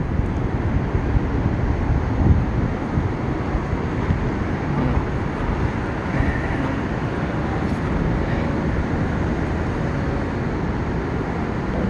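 Steady low rumble of downtown city noise, with no siren tone or rising-and-falling wail standing out.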